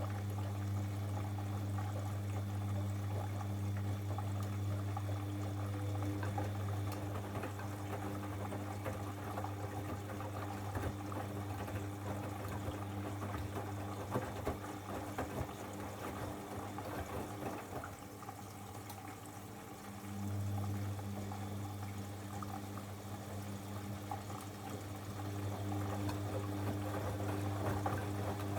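Bosch Avantixx 7 front-loading washing machine mid-wash: water pouring and sloshing in the drum over a steady motor hum. The hum fades after the first several seconds and comes back strongly about two-thirds of the way through.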